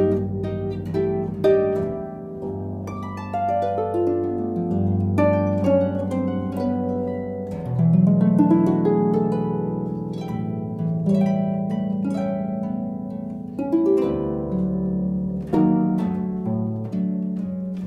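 Instrumental background music: a melody of plucked string notes over held low notes.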